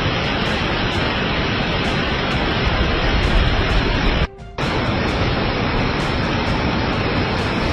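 Steady hiss of heavy rain, with music beneath it; it cuts out briefly about four seconds in.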